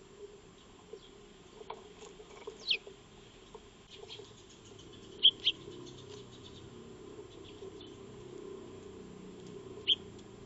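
Eurasian tree sparrows giving a few short, sharp chirps that drop quickly in pitch: one a few seconds in, a quick pair about halfway, and one near the end, with faint scattered ticking between them.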